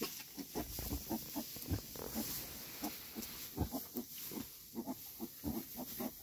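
A sow grunting in short, quick, low grunts as she roots through straw with her snout, building a bed before lying down to nurse her piglets, with the straw rustling under her snout.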